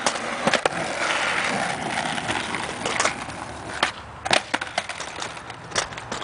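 Skateboard wheels rolling on asphalt, then a run of sharp clacks as the board is popped into a flip trick and clatters down onto the street, the loudest knock about four seconds in.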